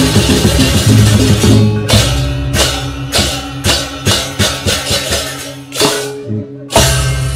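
Janger gamelan ensemble playing, with kendang drums and gamelan percussion. A fast, dense passage breaks about two seconds in into separate accented strikes that ring out, then a short pause before one loud hit near the end.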